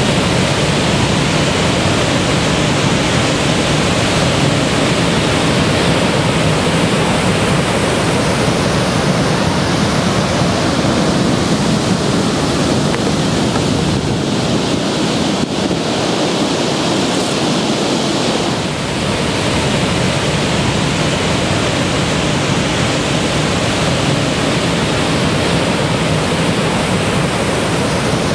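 Steady, loud rushing of water pouring over Niagara's Horseshoe Falls, with a brief dip about two-thirds of the way through.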